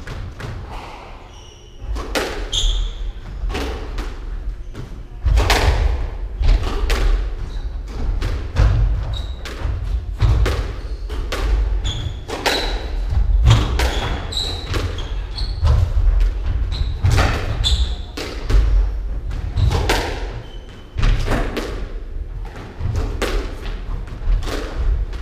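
A squash rally: the ball cracks sharply off rackets and the court walls in a quick, uneven run of hits. Under the hits come thudding footsteps on the wooden court floor and brief shoe squeaks. The hitting starts about two seconds in.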